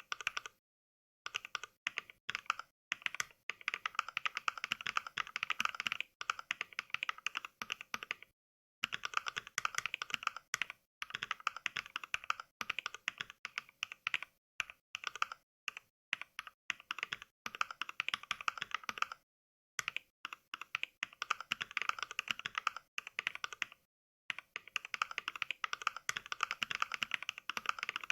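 Simulated mechanical keyboard typing: the Mechvibes program plays NK Cream switch samples for each keystroke, in quick runs of several seconds broken by short dead-silent pauses.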